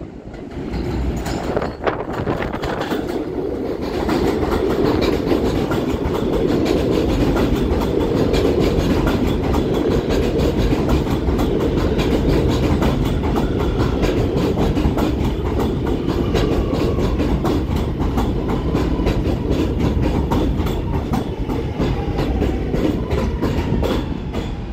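Kawasaki R211A subway train coming in on elevated track and rolling past into the station: a rumble of steel wheels on rail that builds over the first few seconds, with a rapid clickety-clack over the rail joints. A faint falling whine can be heard in the second half as the train slows.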